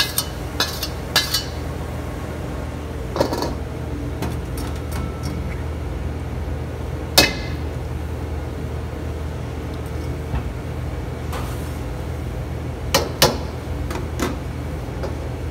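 Steel wok and ladle clinking and knocking against a mesh strainer and metal bowl as fried onion is drained of oil and turned back into the wok: a few sharp metallic clinks, the loudest about halfway through, over a steady low hum.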